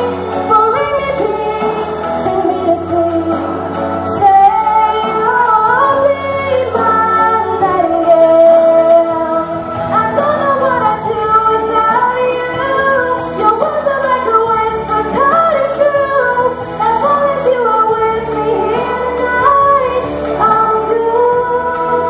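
A young woman sings into a handheld microphone over musical accompaniment, her voice holding long notes and sliding between pitches.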